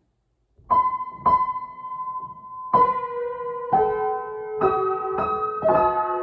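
Piano music begins about half a second in: a few separate struck notes at first, then fuller chords with more notes sounding together.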